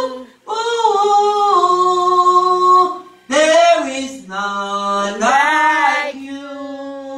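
A woman singing solo and unaccompanied, holding long sung notes across several phrases, with short breaks for breath about half a second and three seconds in.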